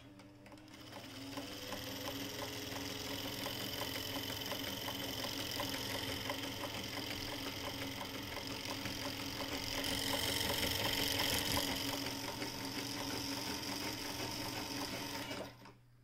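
Brother Window-Matic sewing machine running on its motor to wind a bobbin: a steady whine with fast, regular mechanical ticking. It spins up over the first second or so, runs a little louder for a couple of seconds past the middle, and stops shortly before the end.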